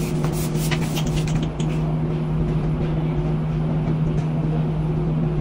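Steady low machine hum, with a few faint clicks and rustles in the first second and a half.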